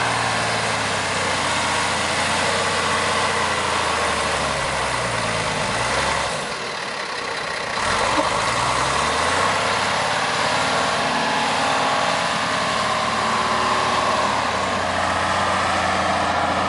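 Four-wheel-drive truck engine working as the truck drives through soft sand dunes: its note falls over the first few seconds, eases off briefly about six seconds in, then pulls steadily again, under a constant rushing hiss.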